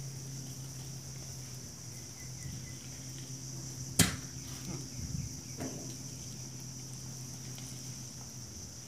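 A steady low engine hum under a steady high-pitched insect drone, with one sharp knock about four seconds in and a couple of lighter knocks just after.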